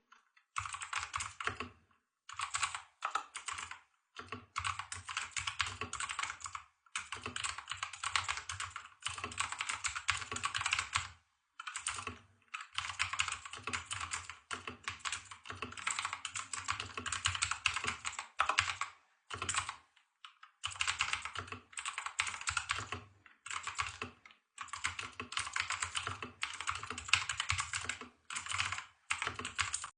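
Typing on an Ajazz AK871 mechanical keyboard with blue switches, whose keystrokes click. Fast runs of keystrokes come in bursts, broken by short pauses of under a second.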